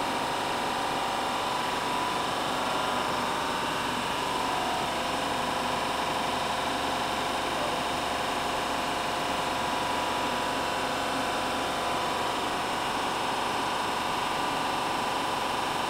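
Steady mechanical hum of a New Brunswick Scientific incubator shaker running, its motor and fans holding several steady tones.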